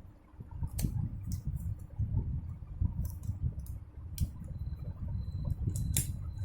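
Scattered sharp clicks and low rustling rumble of insulation paper being handled and pushed into the slots of an electric motor's stator. A faint, thin, steady high tone comes in about halfway through.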